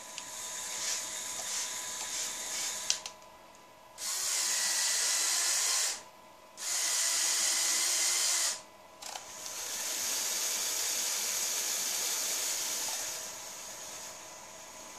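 Small electric motors and plastic gears of a Lego Technic RC lawn mower whirring in bursts. The motors start and stop about four times, with short pauses between runs, and the last run fades lower near the end.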